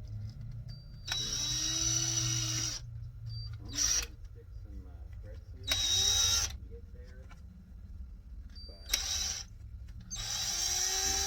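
Electric hand drill run in five short trigger bursts, its motor whine rising at the start of each, while drilling out screw holes in a way-cover piece.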